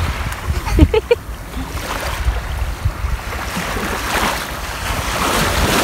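Waves washing up on the shore, the surf swelling in the latter half, with wind rumbling on the microphone.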